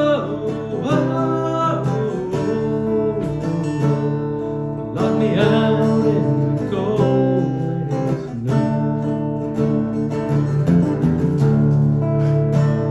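Steel-string acoustic guitar strummed steadily in a folk song, with a man's voice singing a line at times between the strummed passages.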